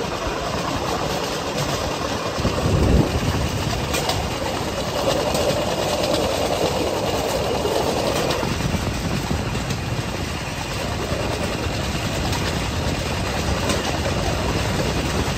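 Steel wheels of a pedal rail bike (vélorail) rolling along the rails, a steady rumble and rattle with a few sharp clicks.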